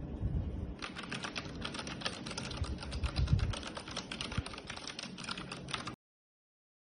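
Typing on a mechanical keyboard fitted with OEM-profile PBT pudding keycaps: a fast, dense run of key clacks that starts about a second in and cuts off abruptly near the end.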